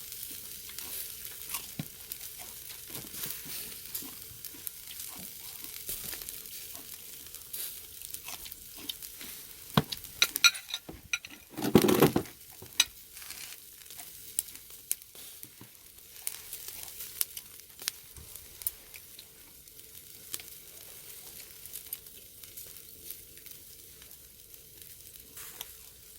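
Pork neck sizzling on a charcoal brazier grill: a steady high hiss with scattered sharp crackles and pops of spitting fat. About ten to twelve seconds in there is a louder burst of clatter and rustling, the loudest moment.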